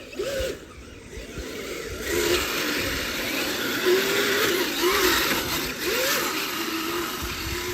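Radio-controlled Blizzard tracked snow vehicle running on hard, icy snow. Its motor whines, the pitch rising and falling with the throttle, over the scraping rattle of the tracks, which gets louder about two seconds in.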